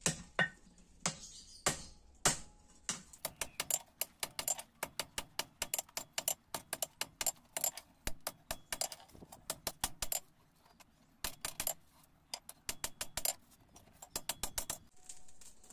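Hand hammer forging a red-hot steel celurit (sickle) blade on an anvil: a few spaced blows, then quick runs of ringing hammer strikes broken by short pauses, stopping near the end.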